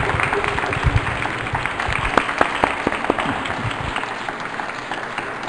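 Audience applauding, many hands clapping, thinning out after about four seconds.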